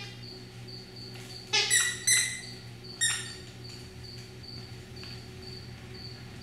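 Squeaky dog toy squeaked by puppies biting it: four short, shrill squeaks, three close together about a second and a half in and one more at about three seconds. A faint high chirp repeats about twice a second in the background.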